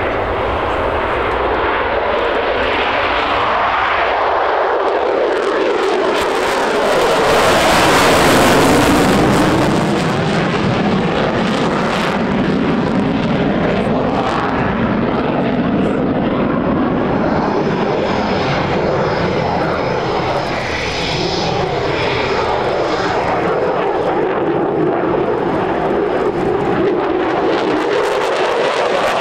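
Boeing F-15QA fighter's twin General Electric F110 turbofan engines running loud and continuous during a flying display. The noise is loudest about eight seconds in, with a pitch that sweeps down as the jet passes.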